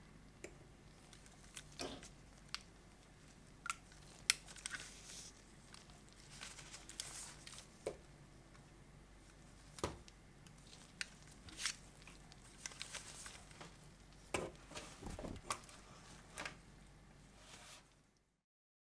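Faint handling noise: scattered light clicks, taps and short rustles as an Iron Man action figure is turned by hand.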